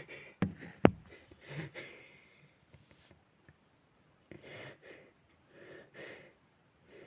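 A man's put-on snoring: noisy snores come every second or so. A sharp click sounds about a second in.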